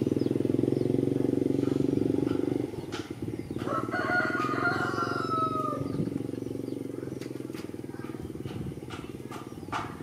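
A small motorbike engine running steadily, dropping in level about three seconds in. Around the middle, a long drawn-out animal call sounds in the distance and falls in pitch at its end.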